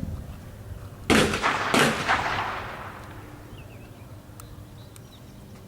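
Two shotgun shots about 0.7 s apart, each sharp crack followed by a long echoing tail across the range.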